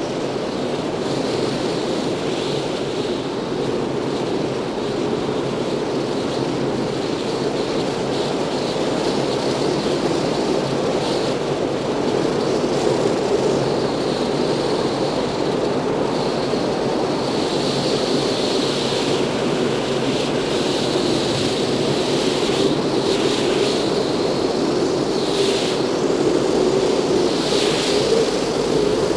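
Rushing wind of air streaming past at speed, a steady, loud roar of noise with a higher hiss that swells and fades several times in the second half.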